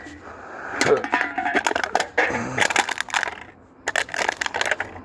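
A metal can being picked up and crumpled, with irregular crackling and clinking.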